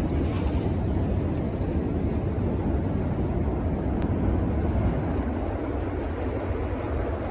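Steady low rumble and rush of a boat under way: engine and water noise, with wind on the microphone.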